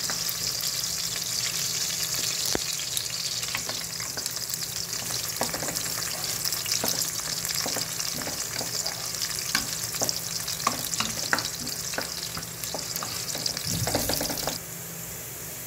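Sliced garlic frying in hot oil in an aluminium pressure-cooker pot, with a steady sizzle, while a wooden spoon stirs it and clicks against the pot. The sizzle falls away near the end.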